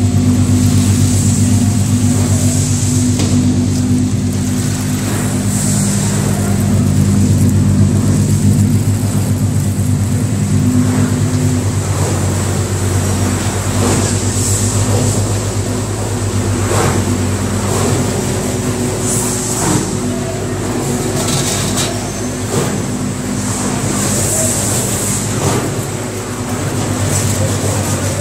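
Puffed corn snack production line machinery running: a loud steady motor hum with a constant high whine and a few short knocks.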